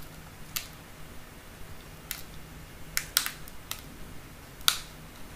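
Sharp clicks and small cracks, about six spread irregularly, as a thin plastic pick pries the glued display of a Samsung Galaxy S5 away from its frame.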